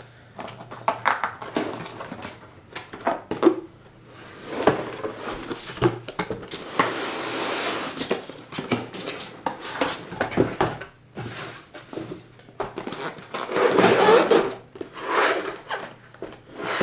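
Unboxing handling noise: cardboard box and plastic packaging being rustled and shifted, with irregular knocks and clicks and a few longer stretches of rustling.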